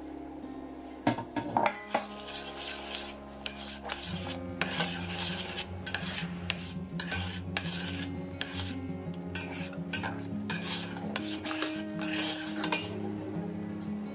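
Metal spoon stirring a thin sauce in a stainless steel pot, scraping and clinking against the pot's sides and bottom in repeated short strokes, over background music.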